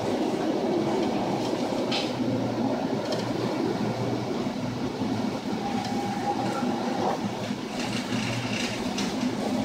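Steady low rumble of a chemical tanker under way in heavy seas, with a hum that comes and goes and a few faint knocks and rattles as waves break over the bow.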